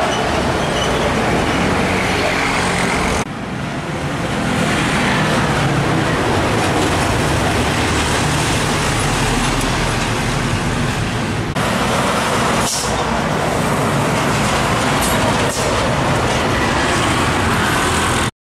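Roadside traffic: heavy trucks and motorcycles passing, a steady mix of engine and tyre noise. The sound changes abruptly twice and cuts off suddenly near the end.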